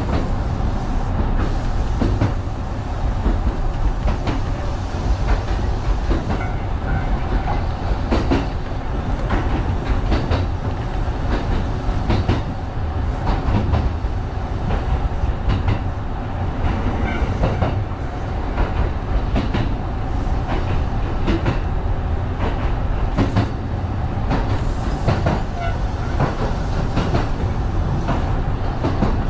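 Kintetsu 1010-series electric train running along the line, heard from inside the train: a steady low rumble of wheels on rail with many sharp clicks from rail joints.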